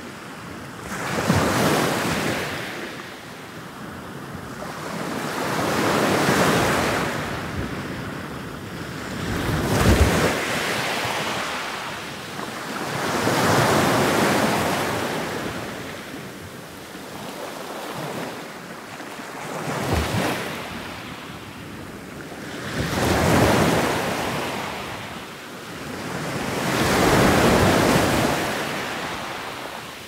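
Ocean waves breaking one after another. Each wash of surf swells and fades, about eight surges in all, with sharper crashes about ten and twenty seconds in.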